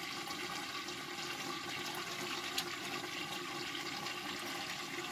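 Water running steadily from a newly installed wall-hung urinal's flush valve into its ceramic bowl as the inside is rinsed and wiped by hand, with one light click partway through.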